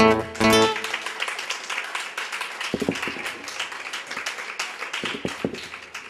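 An acoustic guitar rings out the last chords of a song, then an audience applauds, the clapping dying away near the end.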